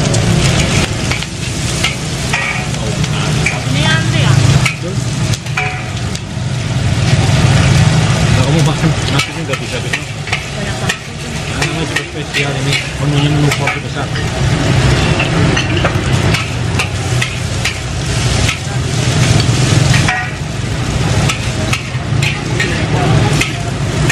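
Food frying in a wok at a fried rice and noodle stall: a continuous sizzling hiss with a metal spatula scraping and clinking, over a steady low hum.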